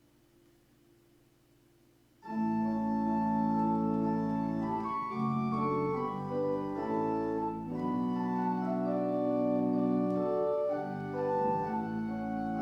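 Church organ: a faint held low chord, then about two seconds in the full organ comes in loudly, playing a slow run of sustained chords.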